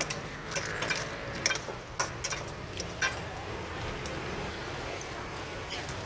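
Metal spoon clinking and scraping against a stainless-steel mixing bowl as a wet salad is tossed: several sharp clinks over the first three seconds, then only steady background noise.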